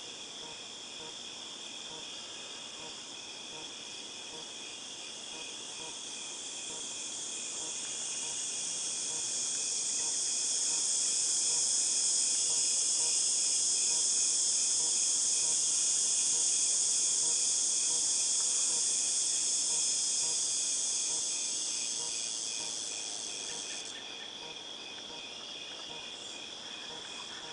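Cicadas buzzing in a high drone that swells up over several seconds, holds, then fades and cuts off abruptly about 24 seconds in. Under it, other insects trill steadily in fast even pulses. The drone has the ringing, tinnitus-like quality of a late-summer cicada chorus.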